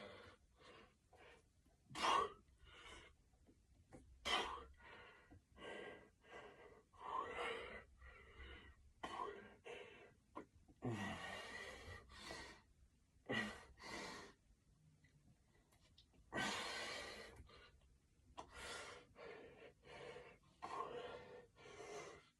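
A man breathing hard through a set of wide-grip pull-ups: short, sharp breaths and gasps at uneven intervals, with two longer exhales, one about eleven seconds in and one about sixteen seconds in.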